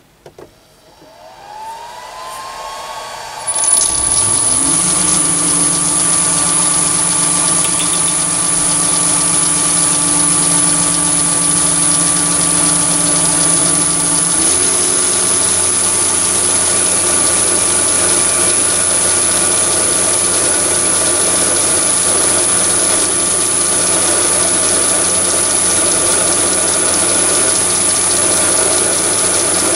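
Chinese mini lathe spinning up, its motor giving a rising whine, then running steadily at about 1,000 rpm with a high-pitched whine while a drill in the tailstock bores into the steel spindle held in the chuck. The running sound shifts slightly about fourteen seconds in.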